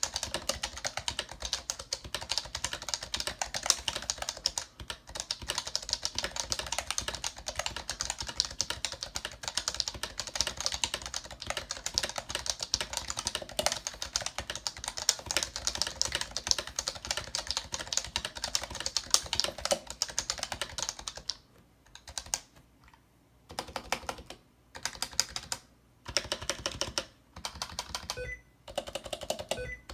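Continuous fast typing on a Happy Hacking Keyboard with Topre switches fitted with BKE Redux heavy rubber domes: a dense stream of loud, almost clicky keystrokes. About two-thirds of the way through, the typing breaks into short bursts separated by brief pauses.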